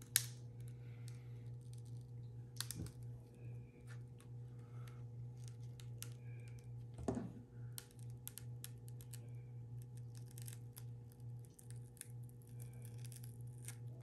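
Small scattered clicks, ticks and scrapes of hand tools working at a Galaxy S8's cracked screen and frame, with a sharper click just after the start and a knock about seven seconds in, over a steady low hum.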